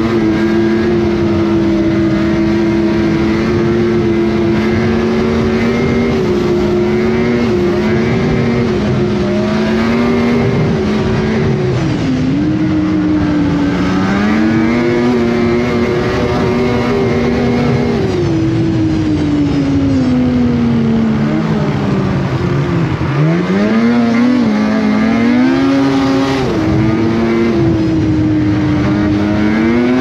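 Snowmobile engine running at trail speed, its pitch steady, with a brief dip about twelve seconds in. Later the pitch falls for several seconds as the sled slows, then climbs back up as it speeds up again.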